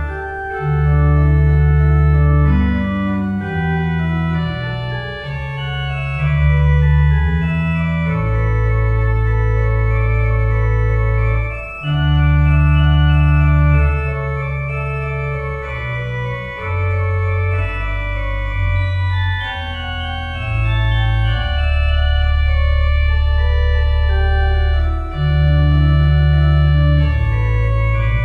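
Organ music: slow held chords over deep bass notes that change every few seconds.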